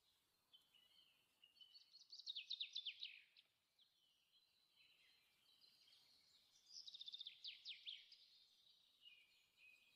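Faint songbird song: varied chirps with two runs of quick, repeated downward trills, one about two seconds in and one about seven seconds in.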